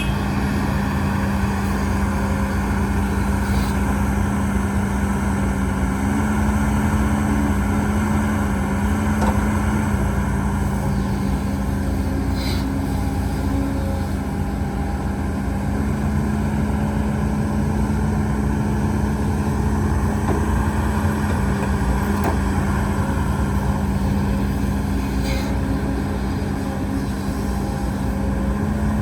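Heavy diesel engine of earthmoving machinery running steadily, its pitch shifting slightly a few times as the load changes.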